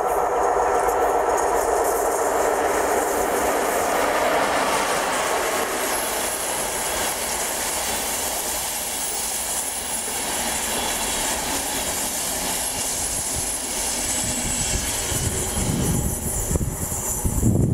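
RegioJet passenger train hauled by a class 162 electric locomotive passing at speed and drawing away: steady rumble and hiss of a long rake of coaches on the rails, strongest in the first few seconds, with low buffeting near the end.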